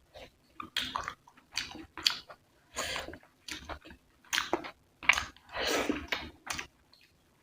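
Close-up chewing and wet mouth sounds of someone eating rice and curry: an irregular run of short smacking, squishy bites.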